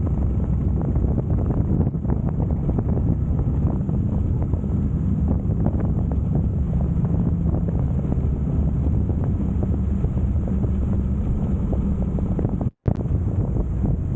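Wind buffeting the microphone on a moving Harley-Davidson Heritage Softail Classic, with its V-twin engine running steadily underneath. The sound drops out for an instant near the end.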